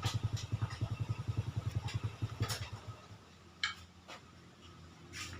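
Suzuki Satria single-cylinder two-stroke motorcycle engine running with a quick, evenly pulsing beat, which about halfway through drops to a quieter, steadier hum, with a few sharp clicks. This is the engine whose sound the owner calls rough.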